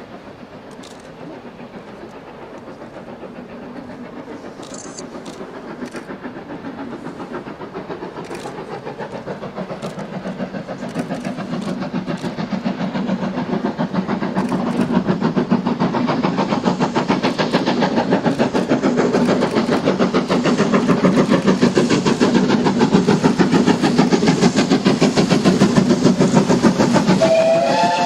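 Steam locomotive working hard at the head of a train, its rapid exhaust beats growing steadily louder as it approaches. About a second before the end, its steam whistle sounds.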